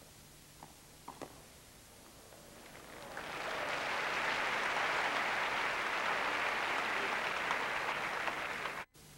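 A few faint knocks of racket on ball, then a large tennis crowd applauding the end of a point, swelling about three seconds in and cut off suddenly near the end.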